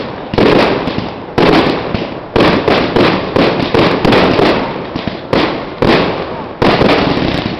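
Aerial fireworks barrage: shells bursting in quick succession, a loud bang about every second, each trailing off into crackle before the next.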